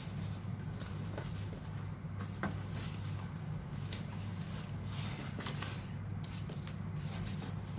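Scattered light clicks and knocks of a coffee machine and its packaging being handled, over a steady low hum.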